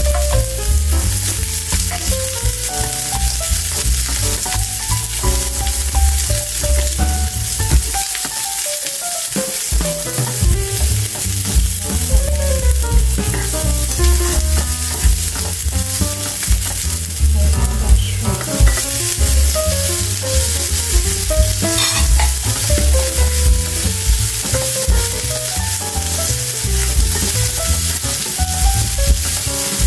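Sliced onions sizzling in oil in a nonstick frying pan over a gas flame, stirred and scraped around the pan with a spatula.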